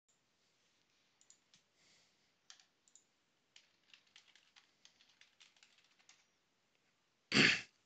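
Computer keyboard typing: a run of light, uneven key clicks as a username and password are entered. Near the end comes one short, loud burst of noise.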